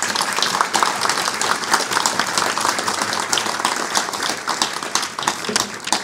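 Audience applause: many hands clapping steadily, beginning to thin out near the end.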